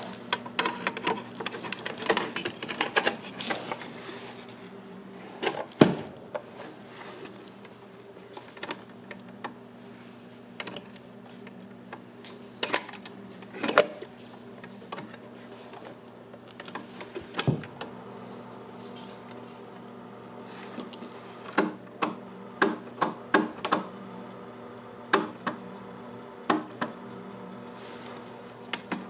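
Steady hum from the running 1970s Zenith solid-state stereo console with its 8-track deck on, overlaid by irregular clicks and knocks of the machine being handled. The clicks come thick for the first few seconds, thin out, then cluster again near the end.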